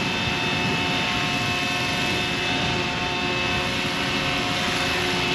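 Roban 600-size Hughes MD500 scale RC helicopter hovering, its motor and rotor head at about 1400 rpm making a steady whine with several held tones. Gusty wind rumbles on the microphone underneath.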